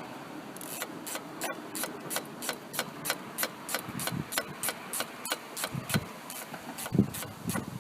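Ratchet spanner clicking steadily, about three clicks a second, as it turns the screw of a 7mm hose clamp. A few dull knocks come in, the loudest near the end.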